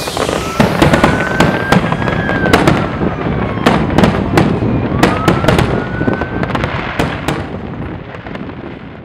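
Fireworks: many sharp bangs and crackling, with two whistling rockets rising in pitch, one in the first couple of seconds and one past the middle, all fading away at the end.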